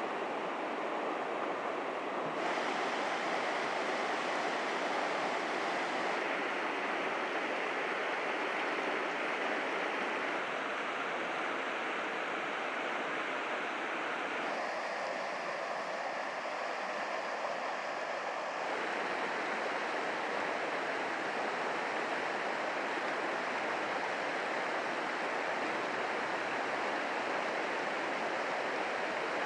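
Steady rushing of a mountain river flowing over rocks and riffles. Its tone changes abruptly a few times.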